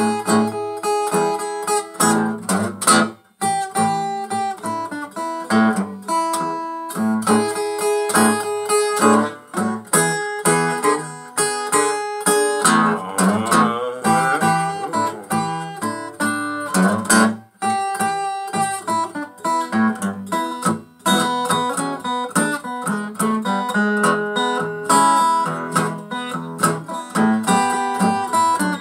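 Takamine EF360S-TT steel-string acoustic guitar, its sides cracked, played as an instrumental blues passage: a steady run of picked bass notes and strummed chords, each with a sharp attack.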